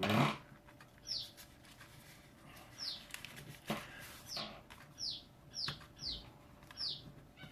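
A small bird chirping again and again, each chirp short and falling in pitch, coming irregularly about every half second to two seconds, with a faint tap or two of small handling noises.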